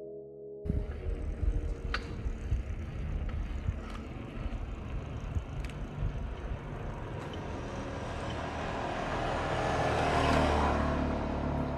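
Background music cuts off under a second in, leaving outdoor street noise: a steady low rumble with a few sharp clicks, and a vehicle passing that swells and fades about ten seconds in.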